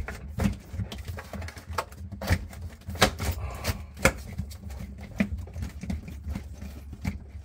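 Irregular clicks and knocks of hard plastic parts being handled and fitted together as the refrigerator's evaporator fan assembly is seated back in place, over a low steady hum.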